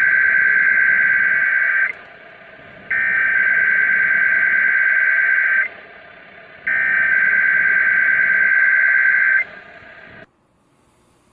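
NOAA Weather Radio's SAME header, the digital data that opens an Emergency Alert System Required Weekly Test, sent three times: three two-tone data bursts of about two and a half seconds each, with a second of radio hiss between them. The hiss cuts off about a second after the third burst.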